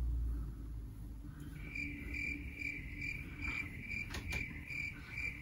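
Cricket chirping sound effect, a regular run of chirps about two a second that starts about a second and a half in, the comic cue for an awkward silence. A single sharp click a little after four seconds.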